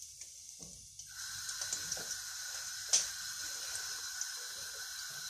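Egg-battered fish pieces frying in plenty of vegetable oil in a pan: a steady sizzle with fine crackling, getting louder about a second in, with one sharper pop near the middle.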